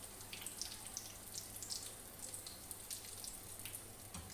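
Breadcrumb-coated chicken patties shallow-frying in hot oil in a frying pan: a faint steady sizzle with scattered small crackles and pops.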